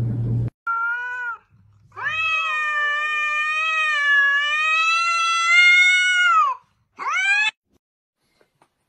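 A cat yowling at another cat in a standoff. It gives a short call, then one long drawn-out yowl of about four seconds that wavers in pitch, then a brief rising call.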